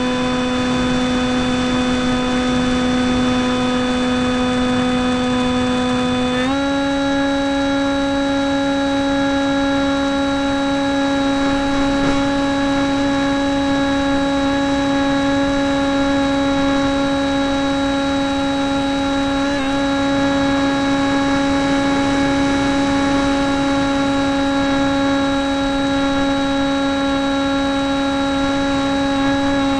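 RC model airplane's motor and propeller running steadily in flight, picked up by a camera on board: a steady whine with a rush of air behind it. About six seconds in the pitch steps up slightly and then holds.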